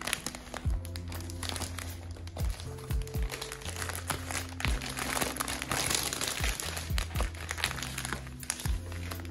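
Background music with a low, sustained bass line and thudding beats, with close crinkling, rustling handling noise over it.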